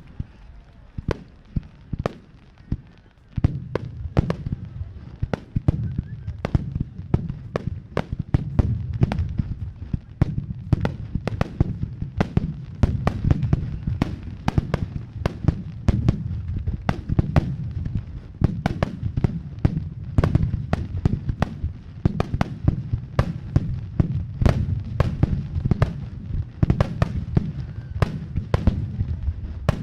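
Aerial fireworks shells bursting in rapid succession: many sharp bangs over a continuous low rumble of booms. About three seconds in the bursts thicken into a dense barrage that keeps going.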